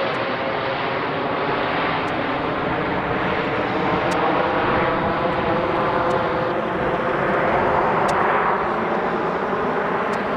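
Boeing 787's twin GEnx-1B turbofans at climb power just after takeoff, a steady, loud jet roar with faint humming tones running through it as the airliner climbs away.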